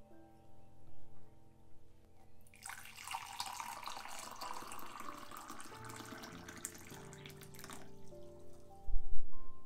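Water poured in a steady stream into a ceramic mug for about five seconds, stopping abruptly. A short, dull low thump follows about a second later.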